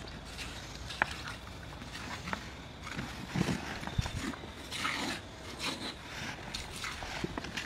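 A cow's hide being worked free from the carcass by hand: scattered rustling, tearing and knocking noises with a few sharp clicks.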